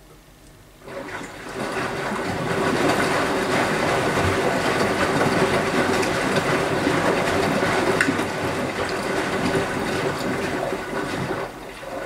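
Beko front-loading washing machine turning its drum during a rinse, wet laundry tumbling and water sloshing, with a steady hum under it. It starts about a second in and dies down shortly before the end.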